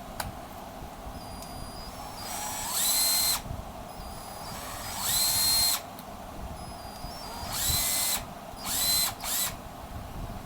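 Cordless drill run in four short bursts: each time the motor whines up in pitch as it spins up, holds steady for under a second, then cuts off.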